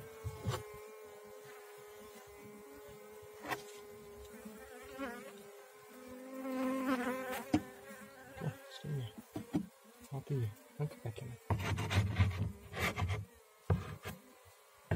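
Honeybees buzzing around a hive box as a swarm is moved in: a steady hum that carries through, with one bee buzzing louder and wavering in pitch about six seconds in. Near the end comes a run of knocks and rubs on the wooden box.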